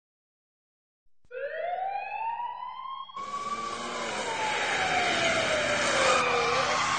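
A siren wail opening the recording: it starts about a second in and rises in pitch, then slowly falls again. A loud rushing noise joins it about three seconds in.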